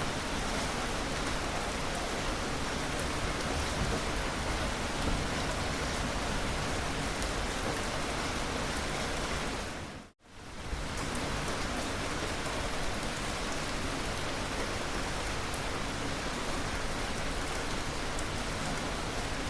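Steady rain falling, an even hiss with scattered drop ticks. About halfway through, it fades out to near silence for a moment and fades straight back in.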